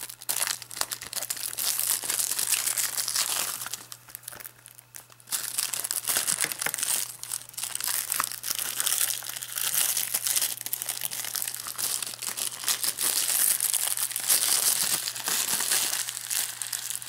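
Clear plastic shrink wrap crinkling and crackling as it is peeled and pulled off a Blu-ray case, with a short lull about four seconds in.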